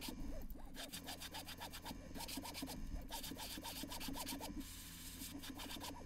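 Airbrush spraying transparent blue water-based paint onto a lure: a quiet, fast, even scratchy pulsing over a steady low hum. The pulsing softens a little before the end.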